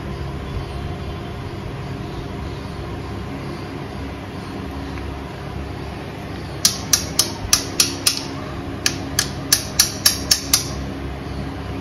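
Two runs of sharp metallic clicks, about three a second, starting a little past halfway over a steady background hum: metal tool work on the oil-filter cover bolts of a KTM Duke 390 engine.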